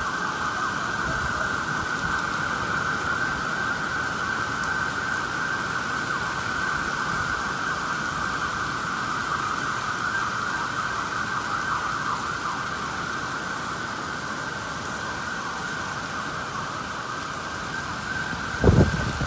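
Emergency vehicle siren wailing continuously over steady rain, fading slightly in the second half. A brief thump near the end.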